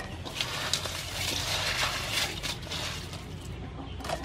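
Hands rummaging through crushed ice and cut blue crab pieces in a steel bowl: ice rattling and crunching, with scattered sharp clicks.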